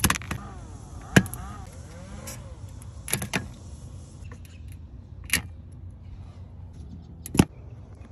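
Plastic push-pin clips of a Dodge Charger's windshield cowl being pried out with a flat tool. About six sharp snaps and clicks come at uneven intervals, the loudest about a second in and near the end.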